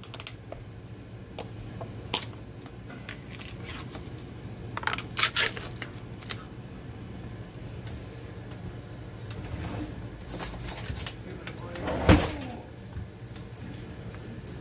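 Kitchen handling sounds: scattered clicks and clinks, a short cluster of clatter about five seconds in and a louder knock about twelve seconds in, over a low steady hum.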